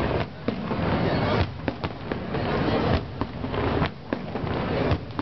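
Aerial fireworks bursting overhead, a string of sharp bangs that come at uneven intervals with a dense rumble between them.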